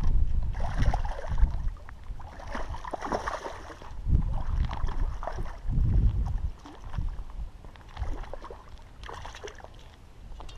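A hooked bass thrashing and splashing at the water's surface, in irregular bursts that are loudest in the first half.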